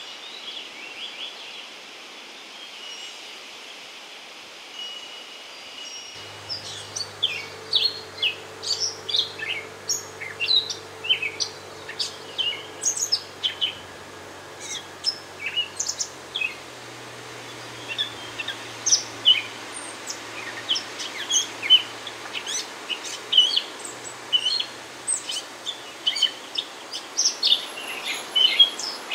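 Small songbirds chirping, many quick short calls overlapping, starting about six seconds in over a faint low hum. Before the chirping, a few high wind chime tones ring out faintly.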